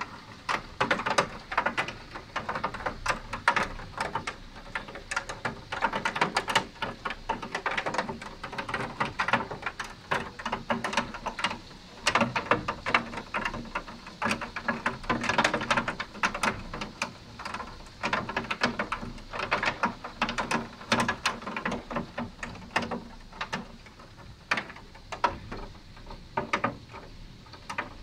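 Hazelnut-sized hailstones pelting down, a dense, irregular clatter of hard impacts that thins out a little in the last few seconds.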